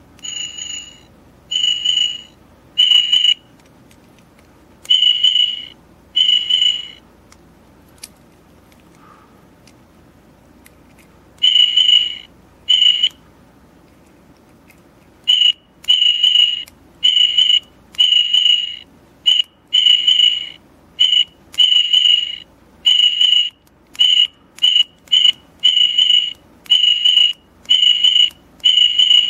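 A high-pitched whistle-like tone sounding in repeated beeps of uneven length, some short and some up to a second long, with irregular gaps and a long pause partway through.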